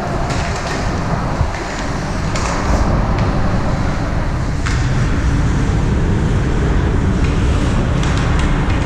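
Ice hockey game sound from the stands: a steady low rumble of rink noise with scattered sharp clacks of sticks and puck.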